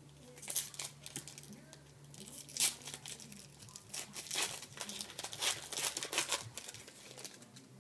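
A trading card pack's wrapper being torn open and crinkled by hand: a run of irregular rustles and tears lasting about six seconds, loudest about two and a half seconds in.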